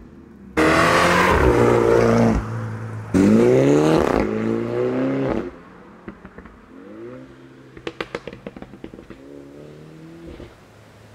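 2017 Mini John Cooper Works with a JCW Pro exhaust, its turbocharged four-cylinder accelerating hard: loud revving that drops about two seconds in, then climbs in pitch again and cuts off sharply. After that the car is heard farther off, revving up again with a quick burst of exhaust pops and crackles near the eight-second mark.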